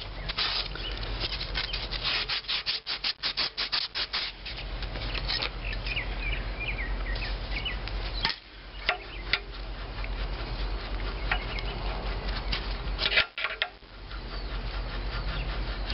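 Quick rubbing, scraping strokes of steel tools against rusty cast-iron engine parts for about the first four seconds, then a few scattered sharp clicks of metal on metal, as two rusted-together pieces of the adjusting arm on a 1925 McCormick-Deering engine are worked at by hand.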